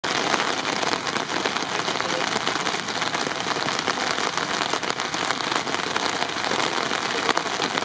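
Rain falling steadily on a nearby surface: a dense, even hiss of many small drop ticks.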